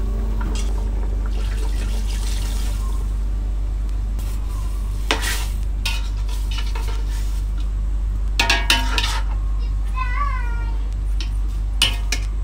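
Metal spoon stirring drumstick curry in a stainless-steel pot, clinking against the pot a few times, over a steady low hum. A short high wavering call, like a cat's meow, sounds near the end.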